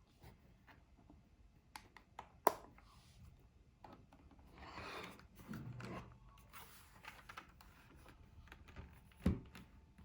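Scattered single clicks of keys being pressed on a Royal Kludge RK84 mechanical keyboard with brown switches, with a rubbing rustle about halfway through and a low thump near the end.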